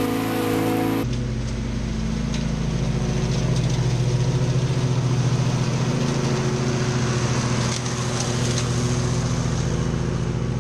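Husqvarna Z248F zero-turn mower running steadily as it drives close past while its deck mulches dry leaves. It gets louder about a second in and is loudest midway.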